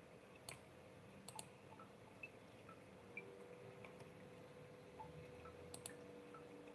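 Near silence: room tone with a faint steady hum and a few faint sharp clicks, one about half a second in, a quick pair soon after, and another quick pair near the end.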